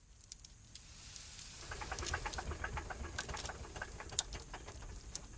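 Faint crackling: scattered sharp clicks over a light hiss, with a quick run of small ticks in the middle. It is the lead-in at the head of a recorded song, just before the music starts.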